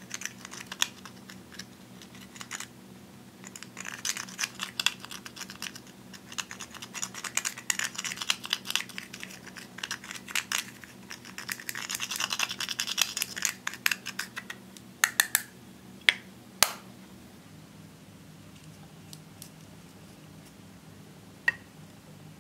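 Pressed eyeshadow being scraped out of its compact pan with a small metal blade: a fast run of dry scratches and clicks, densest in the middle, followed by a few sharp louder clicks and, near the end, one lone click.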